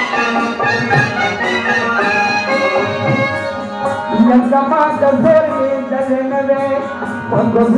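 Pashto saaz matam, Muharram mourning music: a held instrumental melody over a steady drum beat.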